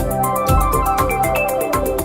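Meizu phone ringtone: a bright electronic melody of short pitched notes over a bass line and a steady beat.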